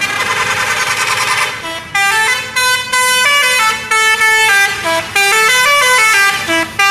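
Telolet musical bus horn: several horn tones blare together at first, then a tune of separate notes steps up and down, with short breaks between phrases.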